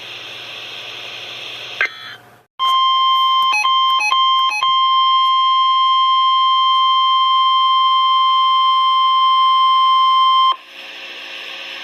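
NOAA Weather Radio warning alarm tone, the 1050 Hz signal that switches on weather alert receivers: one steady high beep lasting about eight seconds, broken by three short crackles soon after it starts. Radio hiss comes before and after it.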